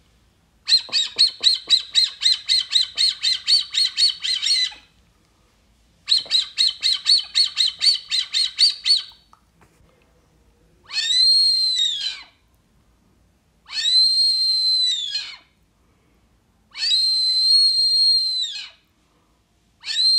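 Wooden duck call made to imitate the Brazilian teal (marreca ananaí), giving two runs of short high whistled notes at about five a second, then three long, steady, level whistles with pauses between, and a fourth beginning near the end.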